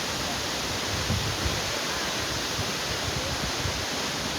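Waterfall: water falling and rushing in a steady, even wash of noise.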